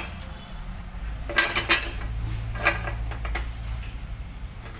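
Metal parts clinking and scraping on a steel workbench top: a scooter's face-drive pulley and a disc brake cover being set down and fitted together, with a quick cluster of clinks a little over a second in and two more single clinks later, over a low steady hum.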